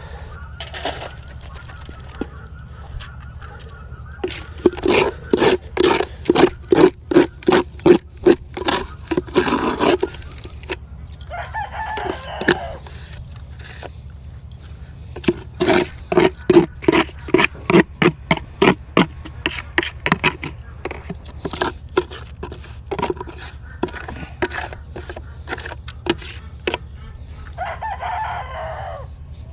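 Penned farm poultry calling: waterfowl honking in two long rapid runs of short calls, and a rooster crowing twice, about twelve seconds in and near the end.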